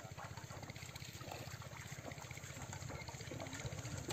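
Water splashing and sloshing as men wade through a shallow pond, with a steady low hum underneath.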